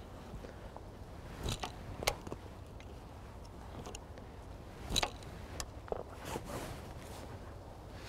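Quiet handling noise: four sharp clicks, the loudest about five seconds in, and a soft rustle a little later, over a faint steady hiss.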